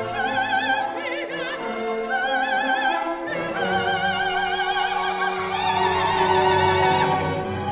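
Background music: an operatic voice singing long notes with strong vibrato over an orchestra.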